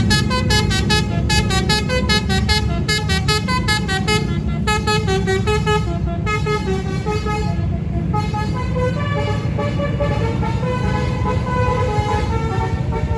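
Telolet basuri melody horn on a bus playing a tune: a fast run of short notes for about six seconds, then longer held notes, over a steady low rumble.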